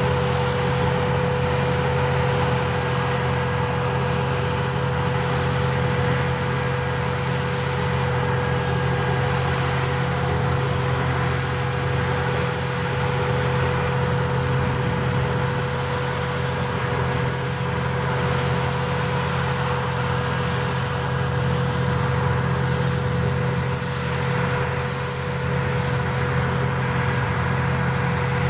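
A steady, unbroken chorus of crickets chirping, over a low, steady engine hum from the harvesting machines working in the field.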